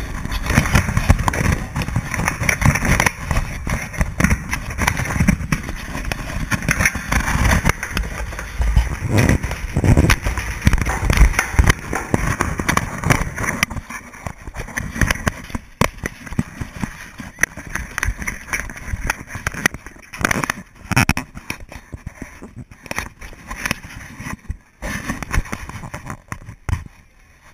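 Wind buffeting and rubbing on a wearable action camera's microphone as the camera is moved around: a loud, uneven rumble, breaking up into rapid crackling and scraping in the second half.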